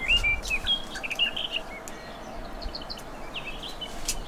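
Small birds chirping and twittering in quick, high, warbling phrases during the first second and a half and again near the end, over a steady outdoor background.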